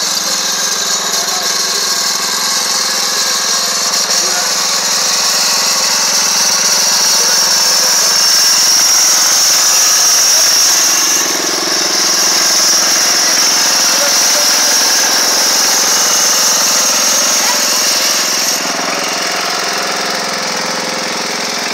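Riding lawn mower engine running steadily as the mower is driven slowly, with a steady high whine on top. It is loudest about halfway through.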